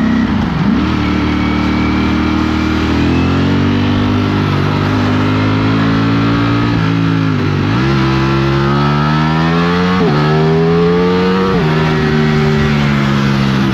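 Ducati Streetfighter V4's V4 engine running under way, its pitch holding fairly steady at first, then climbing with the throttle and dropping sharply at each gear change, several times in the second half.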